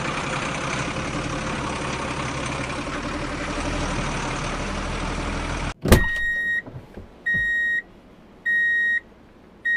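Truck engine sound effect running steadily for almost six seconds, then cut off abruptly by a sharp click. Electronic beeps of one pitch follow, each about half a second long, repeating about every 1.2 seconds, like a truck's reversing alarm.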